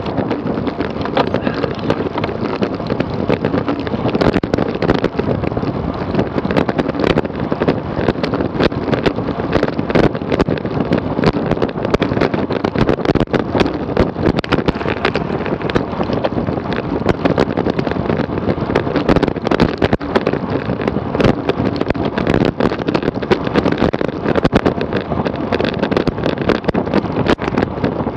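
Wind rushing over the camera microphone on a road bike ride at speed, mixed with tyre and road noise and many small clicks and rattles.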